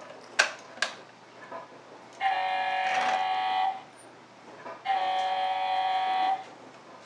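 Toy semi truck's electronic sound unit playing a steady electronic tone twice, each lasting about a second and a half with a short gap between. Two sharp plastic clicks come first, in the first second.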